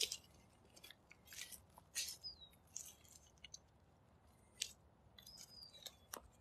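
Faint, irregular crunching of footsteps in sandals over dry leaf litter and dirt. Two brief high bird chirps come through, one about two seconds in and one about five seconds in.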